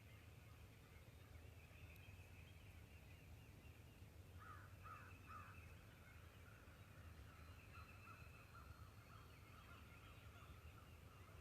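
Faint outdoor background of distant birds calling, with three short, quick falling calls from a bird about four and a half seconds in.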